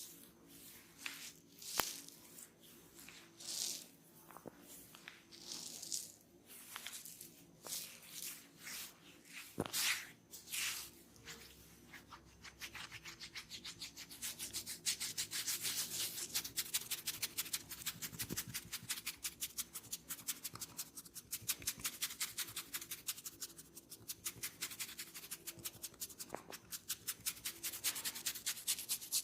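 Hands rubbing skin and hair during an ASMR ear and head massage, close to the microphone. At first the strokes come slowly, about one a second. From about halfway they change to fast, even rubbing strokes, several a second.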